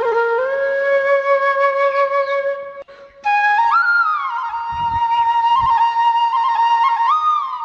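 Background music: a solo flute melody of long held notes with slides between them, breaking off briefly about three seconds in.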